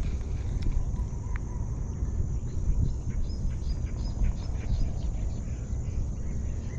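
Outdoor ambience: a steady low rumble, with faint short bird chirps in the middle.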